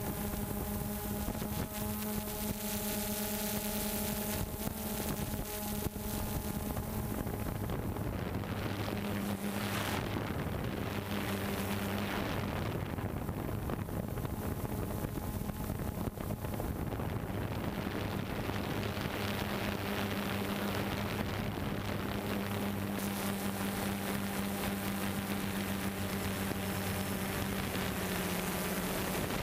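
DJI Phantom 2 Vision+ quadcopter's motors and propellers buzzing steadily in flight, with a whooshing noise under the hum and small shifts in pitch.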